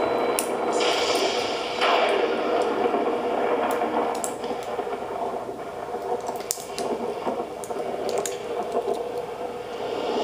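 A film's soundtrack heard through a small CRT television's speaker: steady rain and dripping water with scattered sharp clicks and knocks, swelling briefly about a second in.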